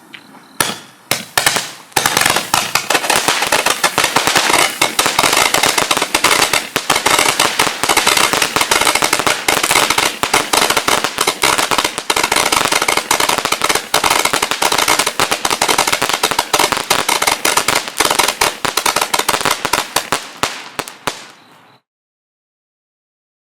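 A 280-shot Roman candle firing a rapid, unbroken stream of shots. A few separate pops open it, then about twenty seconds of dense popping, which stops suddenly.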